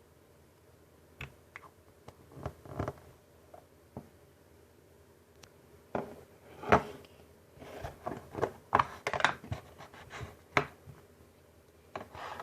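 Slime being handled by hand: irregular sticky clicks and squelches, sparse at first and coming thick and fast in the second half.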